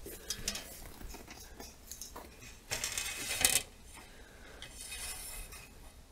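Galvanised wire-mesh transfer cage being handled and set in place, its wire and metal parts clicking and clinking, with a louder rattling scrape about three seconds in.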